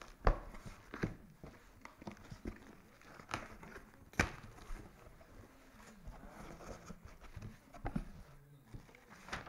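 Scattered light knocks and clicks of things being handled, with faint rustling in between; the sharpest knocks come about a quarter second in and about four seconds in.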